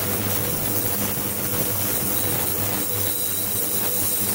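Ultrasonic cleaning tank in operation: a steady hiss from the agitated, cavitating water over a constant low electrical hum.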